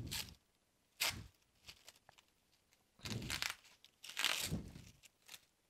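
Tape and plastic packaging being torn off and crinkled in several short bursts, the loudest about four seconds in.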